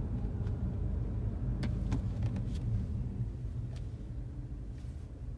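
BMW F30 330i on the move: a steady low rumble of engine and road, easing off slightly toward the end, with a few brief sharp clicks scattered through it.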